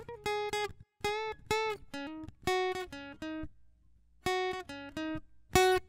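Outro music: a plucked guitar playing a short melody of single notes in quick groups, with brief pauses between phrases.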